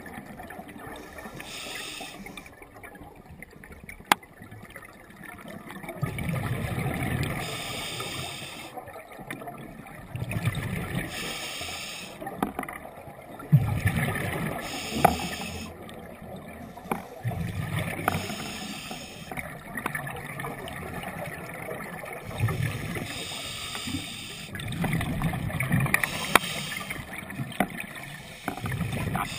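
Scuba breathing heard underwater: a regulator hiss on each inhalation, alternating every few seconds with the low burbling rush of exhaled bubbles. A few sharp clicks come through along the way.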